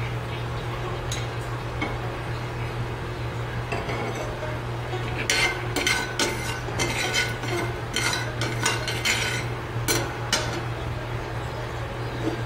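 Metal spatula scraping and clinking against a frying pan while stirring seeds in oil, a run of quick strokes from about five seconds in until about ten and a half seconds. A steady low hum runs underneath.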